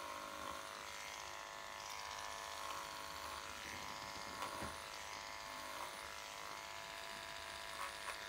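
Corded electric dog clippers running with a steady buzz as they are passed slowly through a poodle's curly coat.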